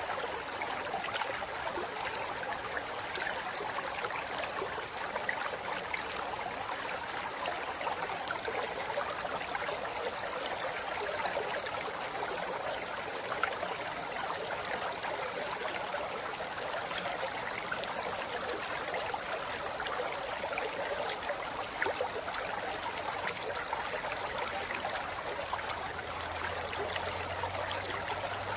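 A forest river running over rocks, a steady rushing and babbling of water with small splashes scattered through it.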